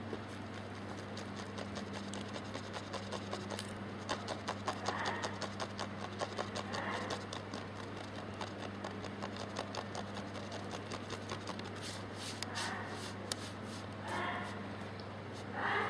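Kittens scampering and scratching on a woven floor mat, with bursts of small clicks and rubbing and a few short high-pitched calls, over a steady low hum.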